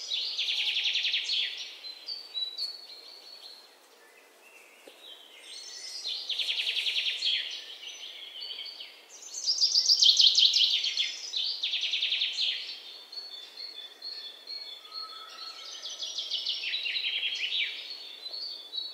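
Bird song: a series of rapid, high trilled phrases, each a second or two long with short pauses between, over a faint steady background hiss.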